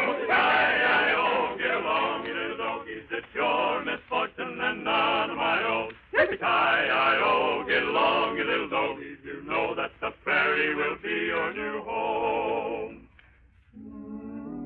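Several voices singing together with a strong vibrato, on an old narrow-band radio recording. The singing stops about 13 seconds in, and after a short pause music starts at the very end.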